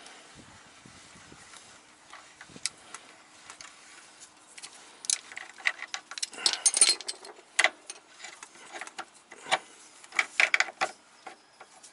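Metal fasteners clinking and rattling in the hands as a bolt and its lock washer are worked into the engine's dogbone mount: a few faint knocks at first, then a run of sharp irregular clicks and clinks in the second half.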